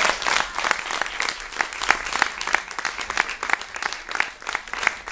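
Audience applauding: many hands clapping, with a few louder claps close by standing out over the rest.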